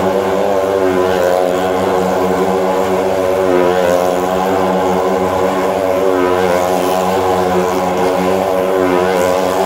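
Motorcycle engine running at a steady high speed as it circles on the vertical wooden wall of a well-of-death drum. The pitch barely changes.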